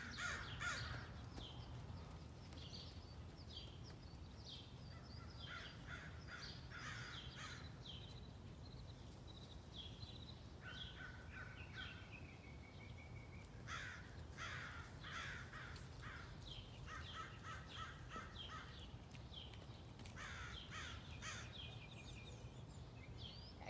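Birds giving repeated short calls in clusters over a faint, steady low rumble.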